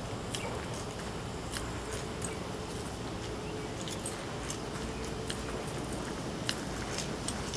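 Footsteps and hand-held camera handling: irregular light clicks and ticks over a steady low rumble.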